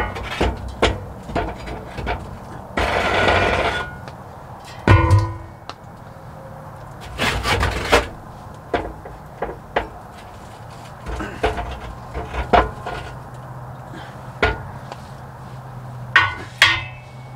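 Metal spatula scraping and knocking out a build-up of ash: repeated sharp clinks and knocks, with a couple of longer scrapes, one about three seconds in and another halfway through.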